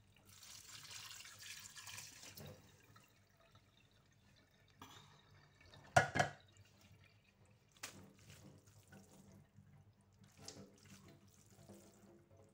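Water running and draining into a stainless steel sink under a colander of pasta for the first couple of seconds, then a single sharp knock about six seconds in, followed by a few lighter clicks and rattles.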